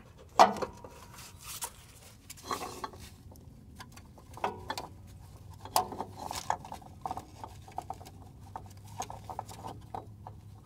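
Scattered light clinks, taps and rubbing as gloved hands work a metal oil filter adapter and its mounting bolts up into position against the engine block, over a faint steady hum.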